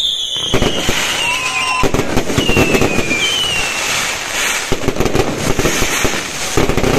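Fireworks display: a dense run of crackling bursts and bangs, with several high whistles that slide down in pitch.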